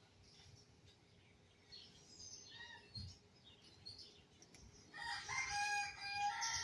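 Birds chirping faintly, then, about five seconds in, a louder, long drawn-out bird call with a steady pitch.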